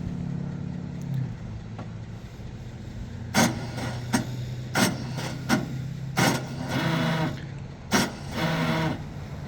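Gehl 5600 skid steer's engine running steadily, with a series of sharp clanks starting about three seconds in and two short stretches of harsher noise with a whine near the end.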